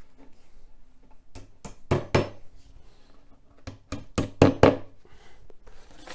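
Wooden dowels being knocked into the holes of a particleboard shelf panel: sharp wooden knocks in two quick groups, about four strikes a couple of seconds in and five more near the middle.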